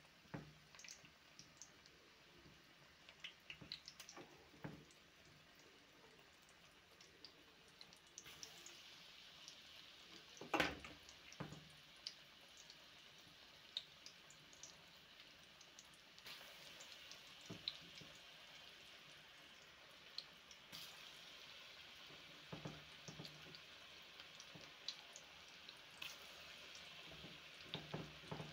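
Balls deep-frying in hot oil: a faint, steady sizzle with scattered crackles and pops. The sizzle grows stronger about eight seconds in, and the loudest pop comes about ten seconds in.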